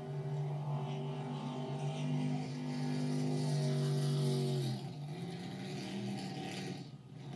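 Racing drag boat's engine running hard at full throttle on a pass. The note holds high and loudest for a few seconds, then drops in pitch about five seconds in and runs on at a lower tone.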